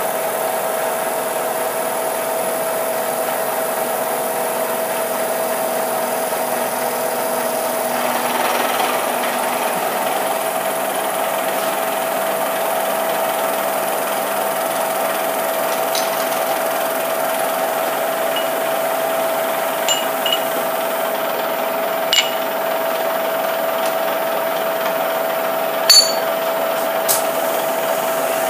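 Milling machine running a face mill through a light facing cut on aluminium vise jaws: a steady spindle whine over the sound of the cut. A few sharp clicks come in the second half, the loudest near the end.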